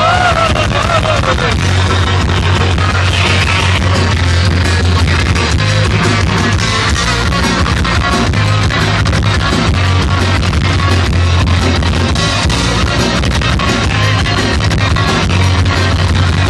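A thrash metal band playing live at loud concert volume, heard from the crowd: distorted electric guitars over a heavy bass and dense drumming, with a line bending down in pitch in the first second or so.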